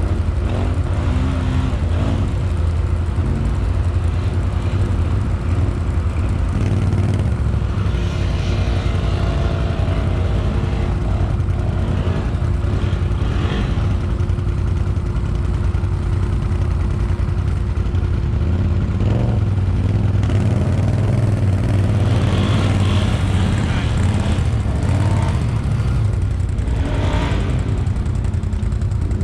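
ATV engine running, with a few brief changes in revs.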